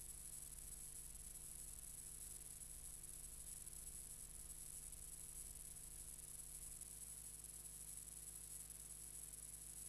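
Near silence: a steady electrical hum and high hiss, the noise floor of a soundless film transfer.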